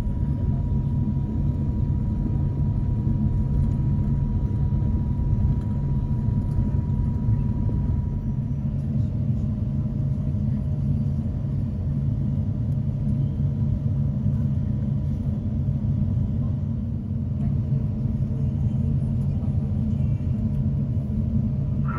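Steady low rumble in the cabin of an Airbus A350-900 taxiing after landing: its Rolls-Royce Trent XWB engines are at idle, along with the cabin air. A faint thin whine sits over it.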